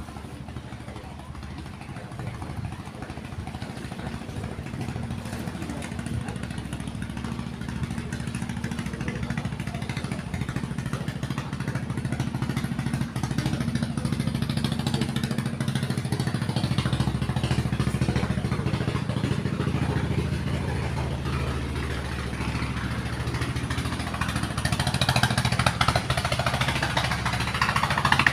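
A small engine running steadily, slowly getting louder over about twenty seconds.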